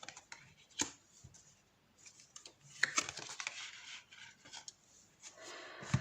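Tarot cards being shuffled and handled: scattered short snaps and paper rustles, with a denser flurry around the middle.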